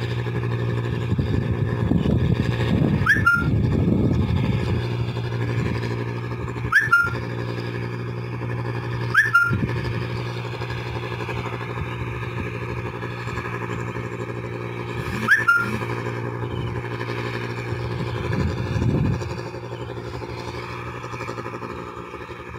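Rice combine harvester's engine running with a steady drone, easing off a little toward the end. Four brief rising squeaks with sharp clicks cut through it.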